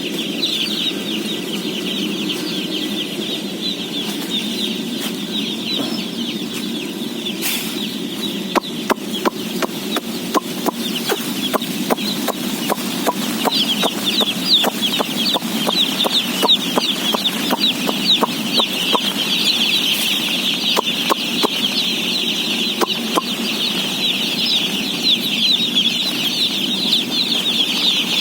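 A huge flock of day-old chicks peeping all at once, a dense high chirping with a steady low drone beneath. From about a third of the way in until near the end, many quick sharp taps and clicks come through it at irregular intervals.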